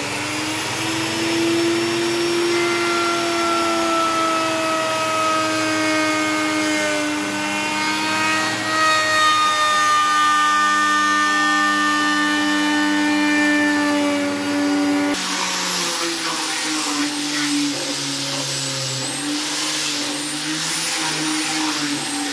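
Electric plunge router running as it cuts into a wooden board, a steady high motor whine whose pitch sags a little under load midway. About two-thirds of the way through it gives way abruptly to an electric random orbital sander running on the wood, a rougher sound with more hiss.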